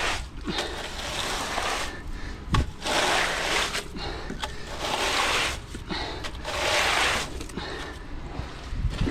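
Wet concrete being worked by hand: about three long scraping, splattering strokes, with a few sharp knocks of tools between them.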